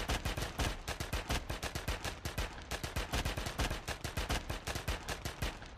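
Automatic gunfire sound effect: a long, rapid, even string of shots that stops near the end.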